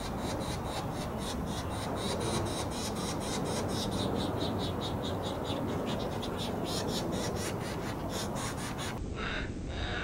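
Northern Flicker nestlings begging from the nest cavity: a fast, rhythmic run of short raspy calls, about five a second, over a steady low background rumble.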